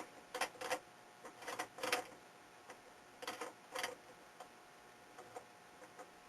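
Light, irregular clicks and taps, about ten in all, from a Hornady cam lock bullet puller die being threaded into a reloading press.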